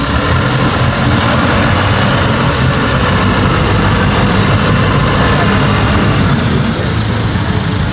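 Sportfishing boat's engines running steadily, with a steady rushing noise over them.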